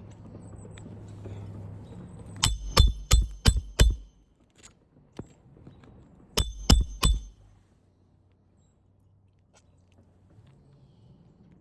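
Hammer striking a metal roof snake to drive roofing nails under a raised shingle tab: a quick run of five ringing metal blows, then three more a few seconds later.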